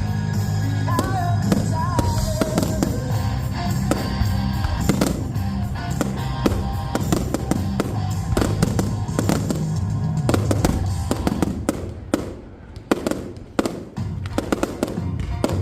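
Fireworks display: a rapid run of sharp bangs and crackles from bursting shells over accompanying music. About twelve seconds in the music drops lower and single sharp bangs stand out.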